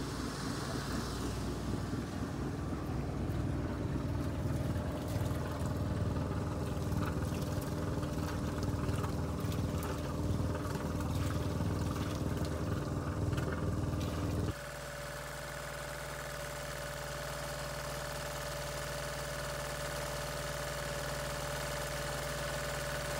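Diesel generator set running under load from the boat's water heater, first heard at its wet exhaust outlet on the hull side with cooling water splashing out into the water; about two-thirds through it cuts suddenly to a quieter, steadier hum heard close to the generator in the engine space.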